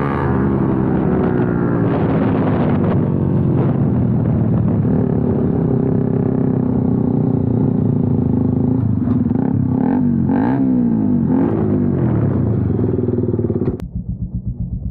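KTM Duke 200 and Yamaha R15 V4 single-cylinder motorcycle engines with aftermarket exhausts running together and revving, ear-splitting, the engine note rising and falling. Near the end it drops suddenly to a lower, evenly pulsing idle.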